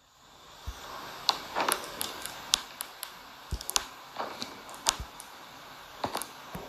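Irregular sharp clicks and taps, a dozen or so, over a low steady hiss that fades in at the start.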